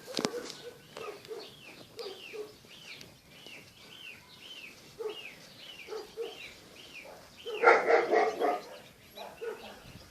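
Kittens mewing over and over in short, high calls that fall in pitch, two or three a second, with a louder, lower animal call about eight seconds in.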